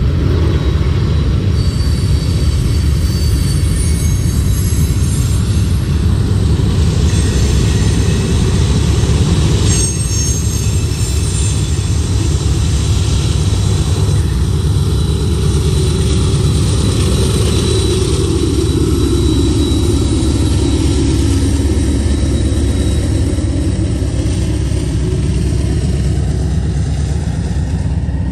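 Freight cars of a long manifest train rolling past close by: a steady heavy rumble of steel wheels on rail, with thin high wheel squeals during the first ten seconds or so. About halfway through, a Union Pacific diesel locomotive running as a mid-train distributed power unit passes, and its engine sound rises and falls as it goes by.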